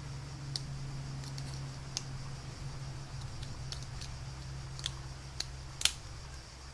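A tool prying at the retaining clip on a lock cylinder, making a handful of sharp metallic clicks, the loudest near the end, over a steady low hum.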